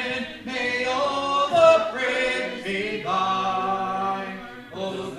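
Church congregation singing a hymn unaccompanied, in slow, long-held notes.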